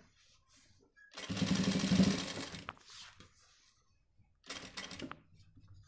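Industrial sewing machine running in two short spurts: one about a second and a half long, then a shorter one near the end. It is stitching a narrow folded shirt hem.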